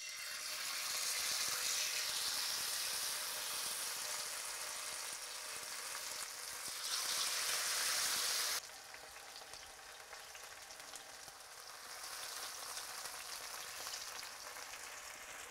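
Marinated basa fillets sizzling as they fry in hot oil in a frying pan. The sizzle drops suddenly to a quieter level a little past halfway.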